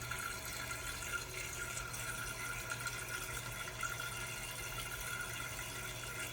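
Toilet tank refilling through a newly installed fill valve: a steady hiss of running water.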